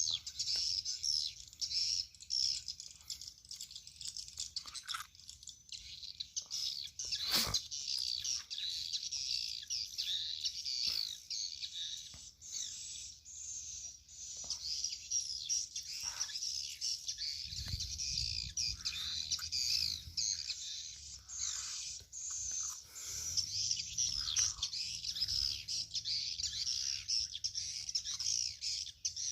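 Swiftlet calls played through the lure speakers of a swiftlet house: a dense, unbroken twittering of high chirps. A low rumble joins about two-thirds of the way through, and there is one sharp click near the start.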